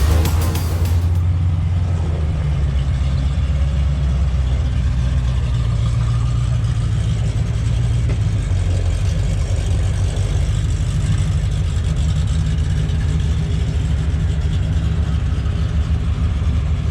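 Car engine running steadily at idle with a deep, low rumble.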